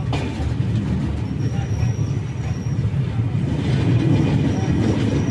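Passenger train coaches running, heard from an open coach doorway: a steady low rumble of wheels on track, swelling louder about four seconds in as the coach passes close to a stone bridge pier.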